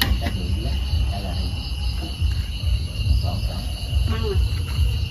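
Steady high chirring of crickets and other night insects over a low rumble, with faint voices in the background.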